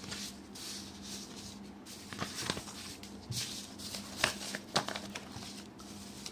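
Sheets of paper rustling and crinkling as they are moved about, with a few sharp clicks and taps, over a faint steady hum.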